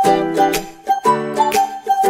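Background music: a light, upbeat tune with plucked ukulele-like strings, a held melody line and a steady beat.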